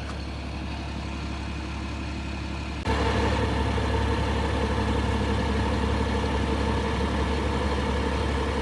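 A steady engine hum, like a vehicle idling. About three seconds in it abruptly gets louder and becomes a fuller, steady drone.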